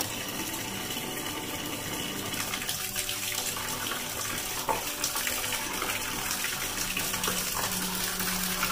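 Steady stream of water pouring from a drain valve held in a ceiling sprinkler outlet and splashing into a partly filled plastic trash can: the residual water is draining out of the shut-off sprinkler branch line.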